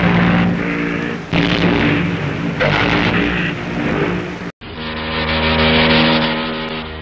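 SS Bremen's ship whistle sounding a long, deep blast that swells up again twice. About four and a half seconds in it cuts off suddenly and the SS Imperator's whistle begins, a steady deep blast.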